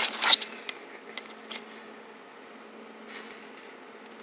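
Stiff plastic blister pack crinkling as it is handled, loudest in the first half-second, followed by a few light clicks and taps. A faint steady hum runs underneath.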